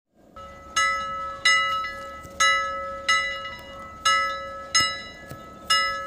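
A temple bell struck again and again, about once every three quarters of a second. Each stroke rings on with several tones over a steady low hum.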